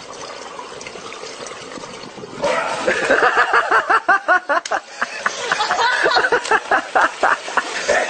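A steady hiss, then from about two and a half seconds in a loud run of quick, repeated vocal sounds that rise and fall in pitch, several a second.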